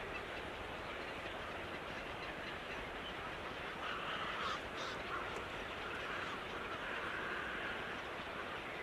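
Birds calling over a steady background hiss, the calls coming in about halfway through.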